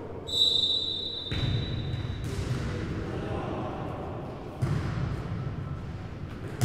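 A referee's whistle blown in one steady blast of about two seconds to start the point. It is followed by the thuds of the futnet ball being kicked and bouncing on the hall floor as play gets under way.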